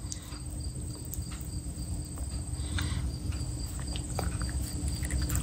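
Shih Tzu licking and chewing moist food from a hand: soft, irregular mouth clicks and smacks, over a low steady rumble.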